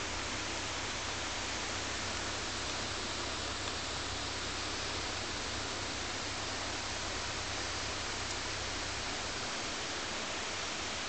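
Steady rushing of a waterfall: an even hiss with a low rumble underneath, unchanging.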